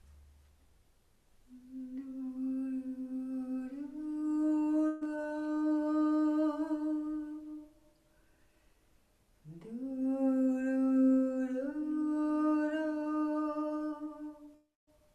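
A woman's voice humming two long held notes, each stepping up to a slightly higher pitch partway through; the second note begins with a slide up from below.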